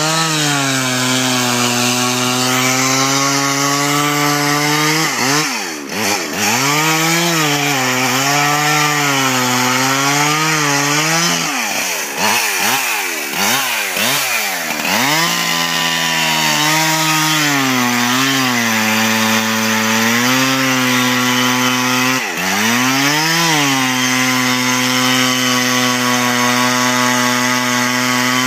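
Two-stroke chainsaw running at high revs while cutting through ice, its engine pitch dropping and climbing back several times: once about five seconds in, in a longer unsettled stretch in the middle, and again about three-quarters of the way through.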